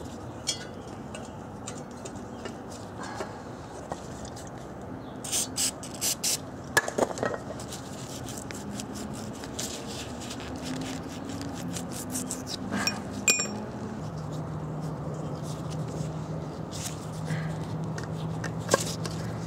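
Scattered light clinks and taps as a new steel exhaust pipe and its rubber hanger insulators are handled and fitted onto the pipe's hanger rods, with a cluster of sharp clicks about a third of the way in. A low steady hum sits underneath from about halfway.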